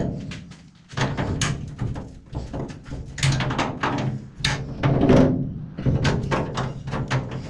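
Sheet-steel cabinet panel knocking and clunking as its bent edge is gripped with locking pliers and worked back into shape: a string of irregular sharp knocks, heaviest a little past halfway.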